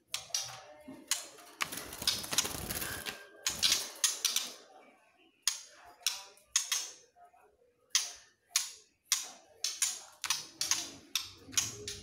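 A juvenile white-rumped shama moving in its wire cage, with a long string of sharp, irregular clicks and a short burst of rustling about two seconds in.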